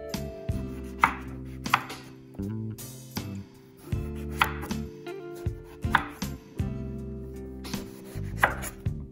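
A chef's knife slicing through a striped eggplant into rounds, each cut ending in a sharp tap of the blade on a wooden cutting board. The cuts come one after another, about one to two a second.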